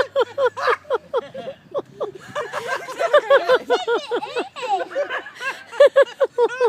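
A person laughing hard in rapid repeated bursts of voiced laughter, going on throughout.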